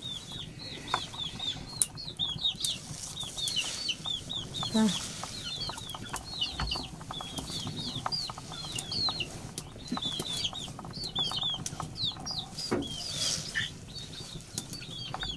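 Chicks peeping steadily: many short, high, rapid cheeps overlapping. Beneath them, light crackles and rustles of fresh leafy greens being handled.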